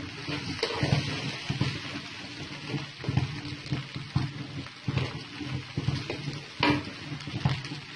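Sauced noodles sizzling in a frying pan as they are stirred, with the spatula knocking against the pan a few times.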